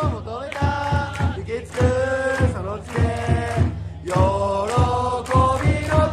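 A large crowd of baseball fans singing a cheering song together a cappella, in unison and without instruments, clapping in time with the beat.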